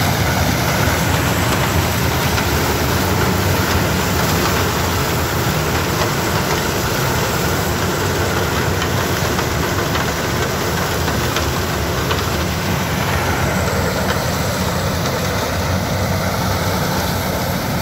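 Yanmar HS2000 sugarcane harvester's 187 hp engine running steadily while it cuts cane and loads it into a truck, mixed with the diesel of the cane truck driving alongside.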